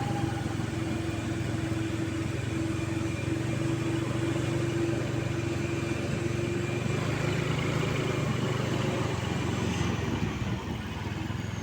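Mitsubishi Canter light truck's diesel engine running steadily. A steady tone rides over the engine and fades out about seven seconds in.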